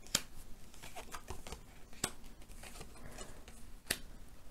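Oracle cards being turned over and laid down on a table by hand: soft card rustles and slaps, with three sharper clicks about two seconds apart.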